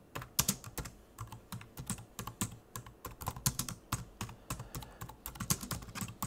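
Typing on a computer keyboard: a quick, irregular run of key clicks as a file name is typed.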